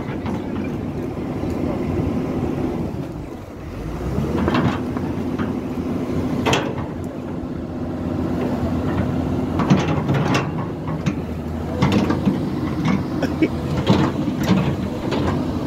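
Hyundai crawler excavator's diesel engine running under load while the boom and bucket dig and lift soil, its pitch steady with a brief dip in level about three seconds in. Several sharp metal knocks and clanks from the working bucket and arm, the later ones in the second half.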